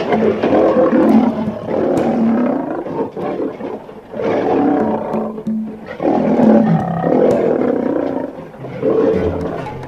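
Lion roaring and growling in several loud bouts, with music playing underneath.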